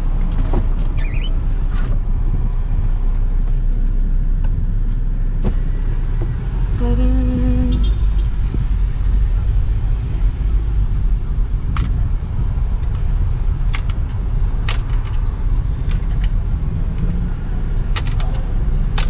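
Car cabin rumble from the engine and tyres as the car drives slowly, heard from inside. About seven seconds in there is a short low pitched tone lasting about a second, and a few sharp clicks come later on.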